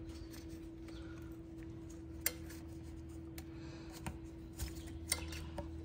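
A few light, separate clicks and taps of a rubber breather tube being pushed onto a plastic engine air intake, over a steady faint hum.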